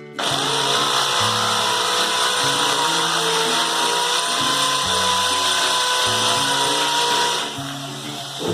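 Electric drill with a 10 mm concrete bit boring a hole into a concrete wall. It starts just after the beginning, runs steadily with a whine, and stops about seven and a half seconds in.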